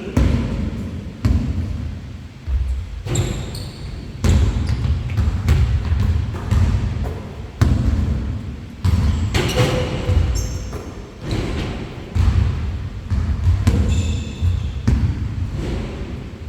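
Basketballs bouncing on a gym floor during a game, a run of irregular thuds.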